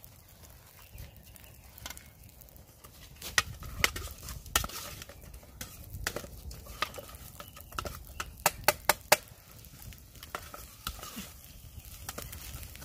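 Metal spoon stirring rice in a metal camping pot over a wood fire, clinking and scraping against the pot's sides, with a quick run of clinks about eight seconds in.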